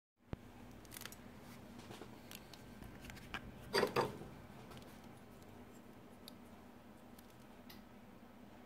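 Scattered small clicks and scrapes of a sharpened steel scorper working under the claws of a diamond ring, with two louder scraping rubs close together about four seconds in.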